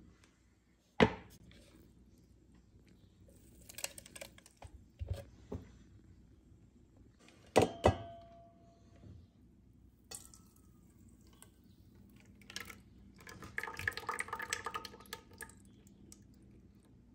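Kitchenware handled on a counter: a sharp knock about a second in, small clatters, and two quick knocks near the middle with a brief ring. Later comes a few seconds of thick batter pouring from a blender jug into a bowl.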